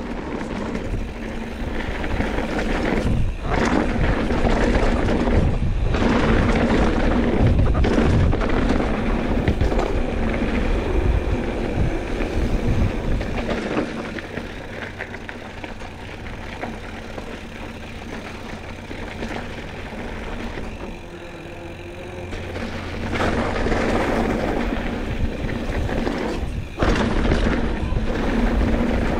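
Mountain bike riding along a dirt singletrack: wind buffeting the microphone and knobby tyres rolling and rattling over dirt, rocks and roots. It goes quieter for several seconds around the middle, then picks up again.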